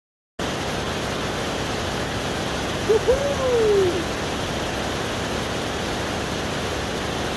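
Waterfall rushing steadily. About three seconds in, a single short hoot-like call rises and then slides down.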